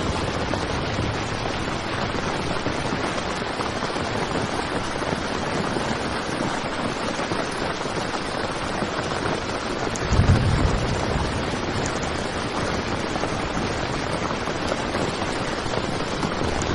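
Heavy rain falling steadily on a tent. About ten seconds in there is a brief low rumble under the rain.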